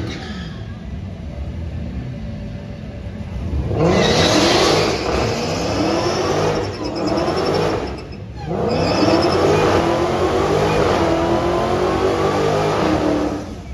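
Car doing a burnout at a drag strip start line: engine revved hard while the tyres spin to heat them before a launch. The revving comes in two long bursts, with a short break about eight seconds in.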